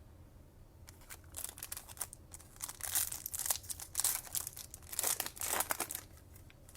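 Foil wrapper of a Topps Chrome baseball card pack being torn open and crinkled by hand, a run of crackling and tearing starting about a second in and dying down near the end.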